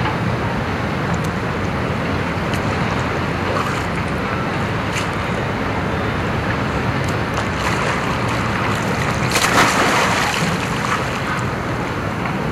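Wind buffeting the microphone over the steady wash of sea water in a rock pool, with a louder rush of noise about nine and a half seconds in.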